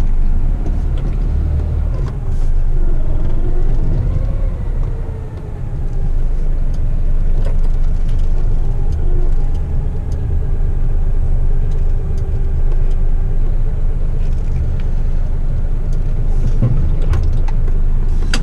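Truck engine running with a steady low rumble, heard from inside the cab.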